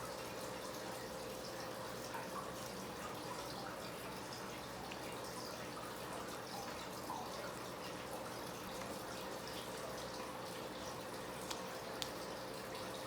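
Water running steadily from a tap in a small room, with a faint steady hum underneath and a few light clicks.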